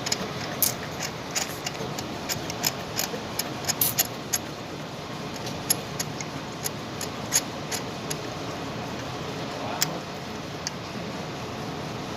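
Irregular metallic clicks and clinks of a socket wrench and hand tools as a spark plug is unscrewed and taken out of the engine, over a steady low background noise.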